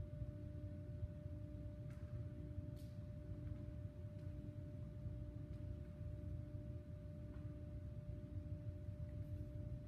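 A sustained pure drone tone held at one pitch, with a fainter lower tone pulsing on and off, over a low room rumble.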